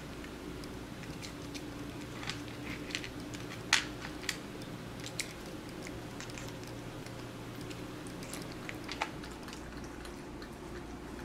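A cat chewing food, with scattered crunches and clicks, most of them in the first half, over a steady low hum.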